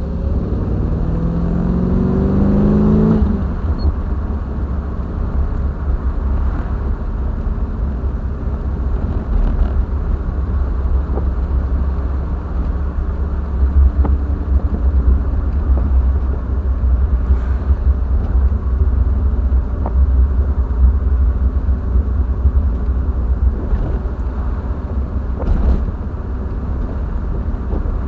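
Triumph TR7's 4.6-litre V8 engine driving, its pitch rising under acceleration for the first three seconds, then settling into a steady low rumble of engine and road noise.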